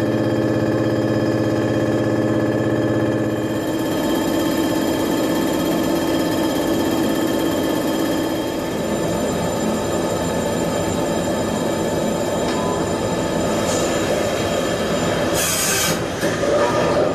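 Heavy industrial machine tool running with a steady hum and several held tones; about three and a half seconds in the low hum drops away and a rougher, noisier grinding sound takes over. A short burst of high hiss comes near the end.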